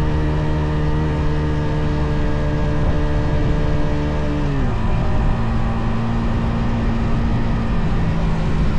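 Stock exhaust of a Yamaha XSR155's single-cylinder 155 cc engine while riding. It holds a steady note, then the revs drop quickly about halfway through and settle at a lower, steady pitch.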